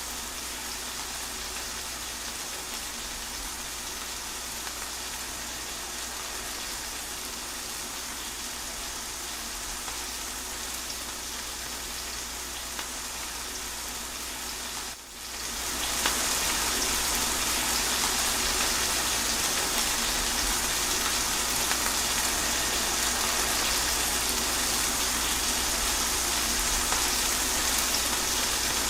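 Steady rain falling, an even hiss of drops. About halfway it briefly drops away, then comes back louder and brighter.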